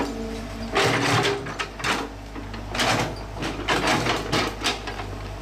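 Komatsu PC120-6 hydraulic excavator at work: its diesel engine runs steadily, with louder noisy surges about once a second as the boom and bucket move.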